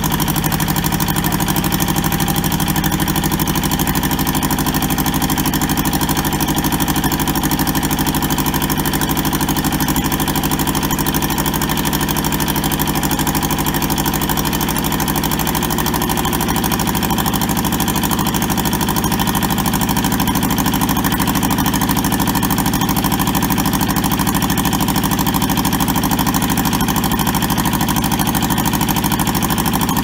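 Diesel engine of a Toyota SDK4 skid steer running steadily at idle, its note shifting slightly about halfway through.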